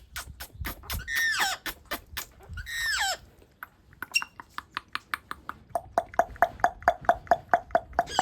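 A pet parrot vocalising: two short calls with bending pitch in the first three seconds, then a fast run of short clicking chirps, about five a second, that grow more tuneful toward the end.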